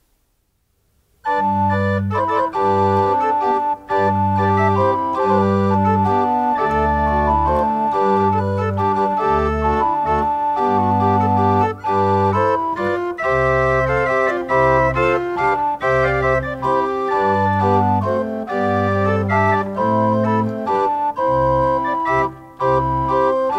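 A pipe organ playing a slow piece in full chords over a bass line, entering about a second in after near silence. The chords are held and change roughly once a second.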